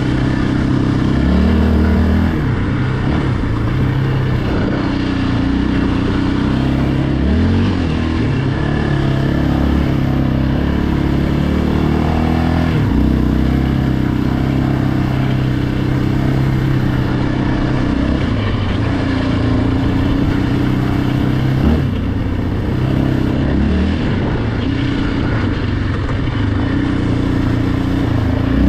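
Yamaha Raptor 700R ATV's single-cylinder four-stroke engine running under way, its pitch rising and dropping several times as the throttle and speed change.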